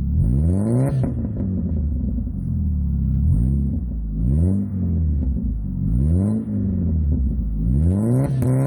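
Chevrolet S-10 pickup engine revved repeatedly from idle, about five blips that each rise and fall in pitch, the largest near the start, middle and end. It is heard through a new catalytic converter and glasspack muffler, with a short tailpipe ending just past the rear axle.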